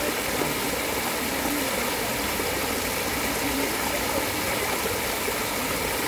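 Water rushing and splashing over boulders in a small man-made cascade, a steady, unbroken rush.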